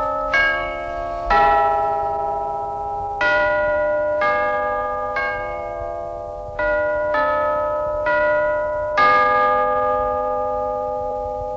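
A slow chime melody of about nine struck bell notes, each ringing on and overlapping the next, playing as the opening ident of an old television news programme.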